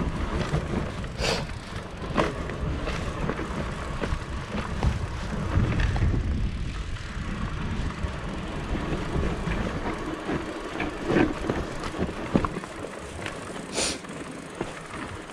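Propain Ekano e-mountain bike ridden over a rough trail: tyres rolling and wind rumbling on the microphone, with repeated sharp clatters of chain and frame over bumps. The rumble eases over the last few seconds.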